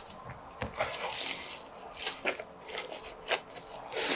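Close-miked chewing of pork belly and raw minari (water parsley) stalks: a run of crisp crunches and wet mouth clicks, with a louder wet burst near the end.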